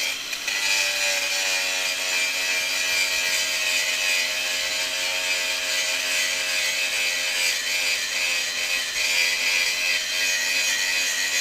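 Angle grinder running against a rusty excavator track idler, grinding off rust. A steady motor whine sits under a harsh, continuous scraping hiss, with a brief dip about half a second in.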